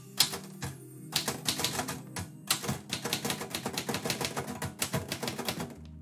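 Manual typewriter being typed on: type bars striking the platen in fast, uneven runs of keystrokes, with background music underneath.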